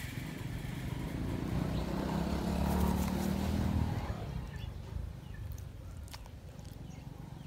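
A motor vehicle engine passing by, growing louder for about three seconds and then fading away about four seconds in.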